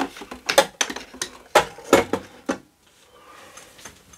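Small hard objects clicking and knocking as they are handled and set down: a run of sharp clicks in the first two and a half seconds, then only faint handling noise.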